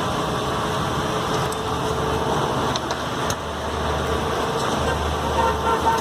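Steady roadside traffic noise: vehicle engines running, with a few faint clicks.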